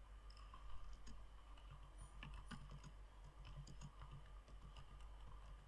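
Computer keyboard typing: faint, irregular keystrokes.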